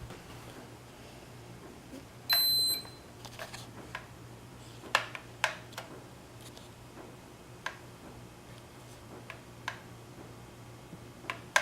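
A single electronic beep lasting about half a second, about two seconds in, from the toy quadcopter's remote controller being switched on to fly. It is followed by scattered light clicks and taps of handling, over a steady low hum.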